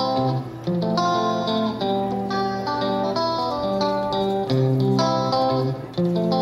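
Background music with a plucked guitar melody.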